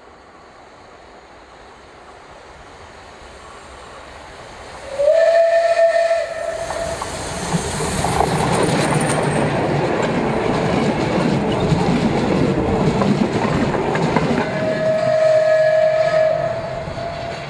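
Steam locomotive blowing its whistle, a steady note of about a second and a half, as the train draws near, then the locomotive and its coaches passing close by with loud wheel and running noise. A second, longer whistle blast sounds near the end as the train moves away.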